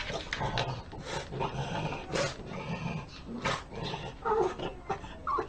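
Pug pawing at a wooden gate, its claws scraping and tapping on the boards in many short strokes, with low dog vocal sounds in the first few seconds.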